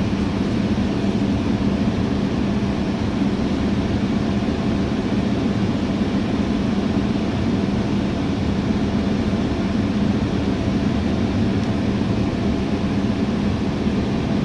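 Steady engine drone and road noise inside a moving city bus, with a constant low hum.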